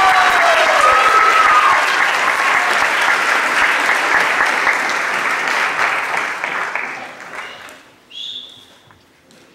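Audience applauding, dying away about seven to eight seconds in, with a short high-pitched sound just after.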